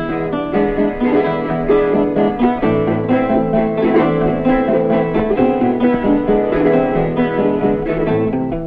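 Instrumental introduction of an Ecuadorian pasillo played on plucked guitars, a steady run of quick melodic notes over chords, with no singing yet.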